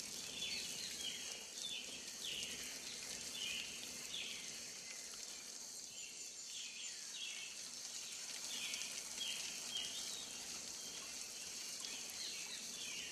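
Outdoor nature ambience: a bird chirping over and over in short falling chirps, one to two a second, over a steady high hiss.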